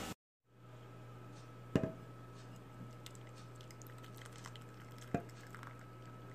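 Hot cream poured from a saucepan into a glass bowl of chocolate pieces, with faint splashing and dripping ticks. Two sharp clinks of metal on glass, a little under two seconds in and again about five seconds in. A steady low hum runs underneath.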